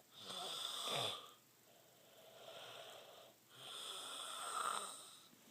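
A person with strep throat snoring in their sleep: two loud snores about three and a half seconds apart, with quieter breathing between them.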